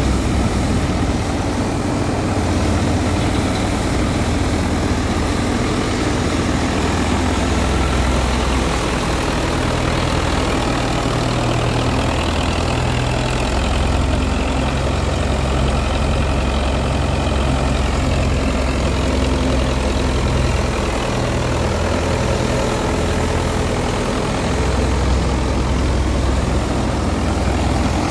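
Belarus tractor's diesel engine running steadily under load while it drives a thresher, with the thresher's constant rushing noise over it as straw is fed in.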